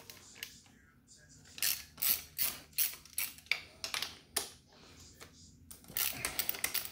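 Small hand socket ratchet clicking in two runs of quick clicks, with a pause between, as it backs out the clutch cover bolts on a Kawasaki ZX-10R engine.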